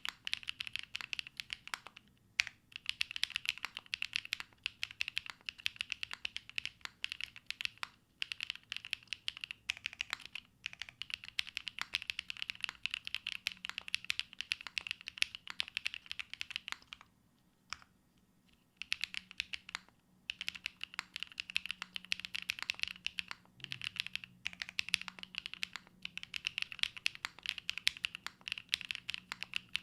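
Continuous fast typing on a Matrix Lab Magic3 80% mechanical keyboard with Sarokeys Strawberry Wine switches, GMK Hazakura keycaps and a full aluminium plate, no foam. Keystrokes come in rapid runs broken by short pauses, with one pause of about two seconds a little past the middle.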